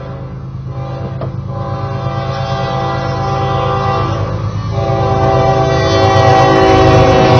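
Approaching CSX diesel locomotive sounding its air horn in two long blasts, with a short break about four and a half seconds in, over the low rumble of the diesel engine, all growing steadily louder as it nears.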